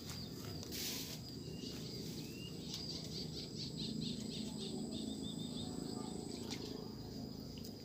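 A small bird chirping a quick run of short high notes over a steady high insect drone, with a brief swish about a second in.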